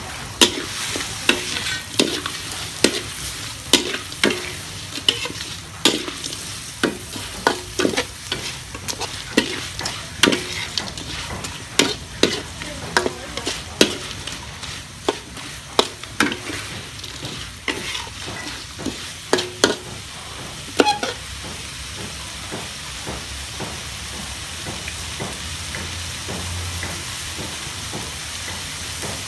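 Metal spatula scraping and clanking against a metal wok as small crabs are stir-fried in oil, over a steady sizzle. The scraping stops about two-thirds of the way through, leaving only the sizzle.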